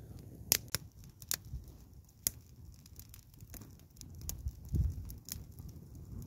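Small wood campfire crackling, with sharp pops a handful of times over the low sound of the flames.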